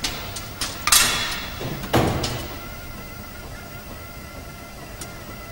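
Sharp knocks and two clattering crashes from the bowling lane's pins and pinsetter, the heavier one about two seconds in, then a steady low hum of the hall.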